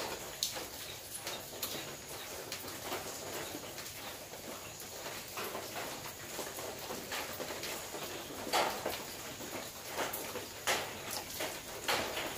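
Rain falling on a corrugated zinc roof: a steady patter, with single drops knocking sharply on the metal at irregular moments, a few louder knocks in the second half.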